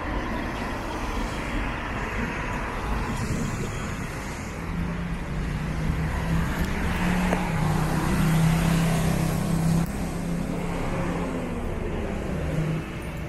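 City street traffic: cars and other motor vehicles running and passing. A steady low engine hum comes in about four seconds in and stops shortly before the end.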